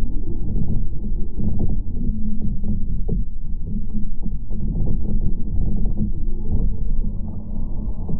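Muffled underwater rumble with many small knocks and clicks, heard through a camera's waterproof housing as the speargun is held with its line taut.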